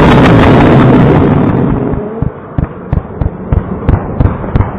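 Strobe rocket climbing: the loud rushing noise of its motor, fading after about two seconds, then a string of sharp pops from the strobe stars high up, about four a second.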